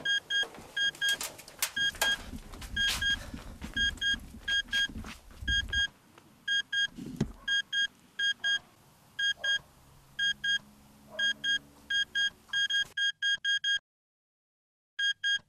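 Digital alarm clock beeping in quick pairs of high beeps, over and over, still going after being crushed and burnt. A low car rumble runs under the first several seconds and then fades. The beeping cuts out briefly near the end and then starts again.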